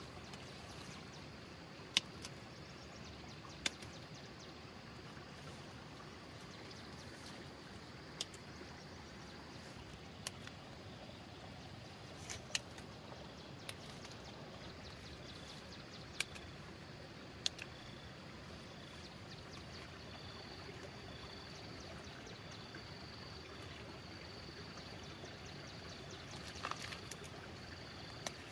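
Sharp snaps of fern and plant stems broken off by hand, one every few seconds, over a steady outdoor hiss. In the second half a faint repeating high chirp runs along, and near the end a quick cluster of snaps and rustles.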